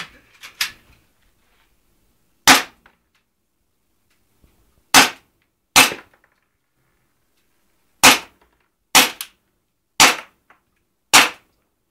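Airsoft pistol fired seven times, single sharp shots spaced about one to two and a half seconds apart, with a few faint clicks just before the first shot.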